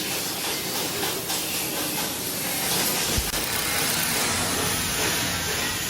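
A steady, fairly loud hiss, with a brief low thump about three seconds in.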